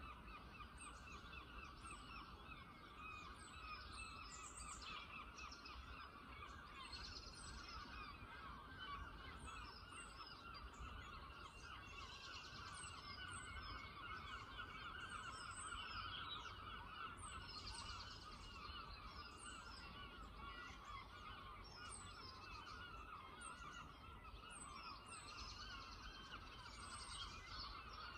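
A faint, continuous chorus of many birds calling at once: a dense mid-pitched chatter of overlapping calls, with thin high calls of small birds repeating above it.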